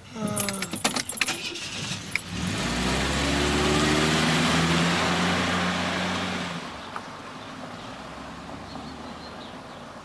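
Car engine picking up as the car pulls away about two seconds in, running at a steady note for several seconds, then dropping away about six and a half seconds in as the car drives off. Brief clicks and rattles come first.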